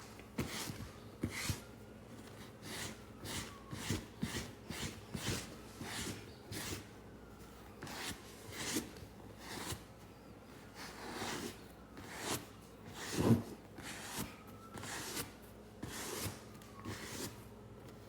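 Irregular rubbing and swishing strokes of hands-on cleaning, several a second, with one louder thump about thirteen seconds in.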